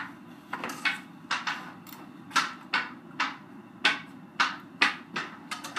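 Hockey stick blade knocking a ball along a hard basement floor as it is stickhandled: a run of sharp clacks, about three a second.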